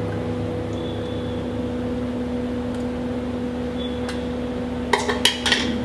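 A steady hum holding two pitches, with a few short slurping sounds about five seconds in as curry is tasted off a spoon.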